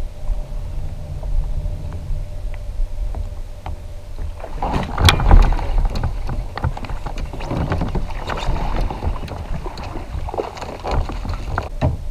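A hooked largemouth bass splashing and thrashing at the surface as it is fought beside a kayak. It starts with a loud splash about five seconds in, followed by uneven splashing and sharp knocks until the fish comes aboard.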